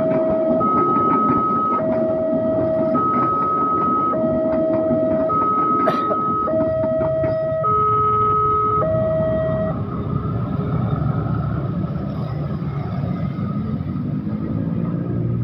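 Railroad crossing warning signal sounding a two-tone high-low chime, each tone held about a second, over the rumble of a passing train. The chime stops about ten seconds in, leaving motorcycle engines and road traffic running.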